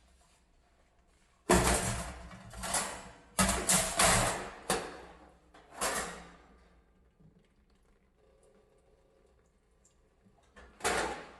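Oven and stovetop being cleaned in short, sharp hissing strokes: about six in quick succession, then a pause of several seconds and one more near the end.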